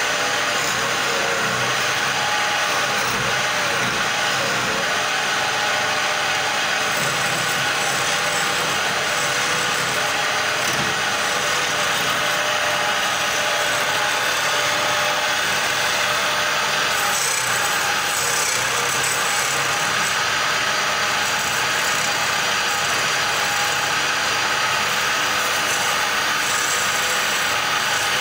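Belt-driven wood lathe running while a hand-held chisel cuts into the spinning wooden spindle: a steady scraping, shaving noise over the machine's even whine.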